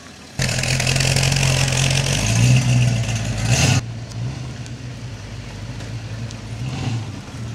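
A Dodge Challenger muscle car's engine runs loud as the car accelerates toward and past the camera. The sound starts abruptly about half a second in and cuts off abruptly just under four seconds in, giving way to a quieter, steady vehicle running sound.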